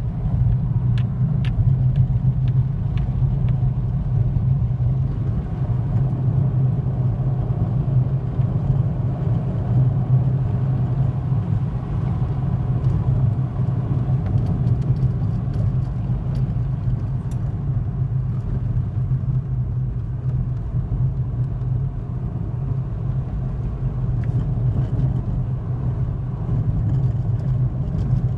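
Car driving at steady speed, heard from inside the cabin: a continuous low rumble of engine and tyre noise.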